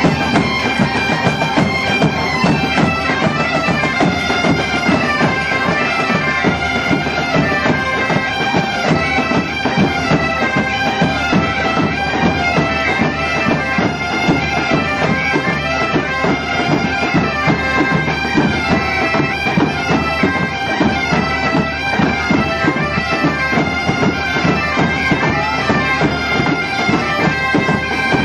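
A large band of Galician bagpipes (gaitas) playing a tune together over their steady drones, with snare drum and bass drum beating time throughout.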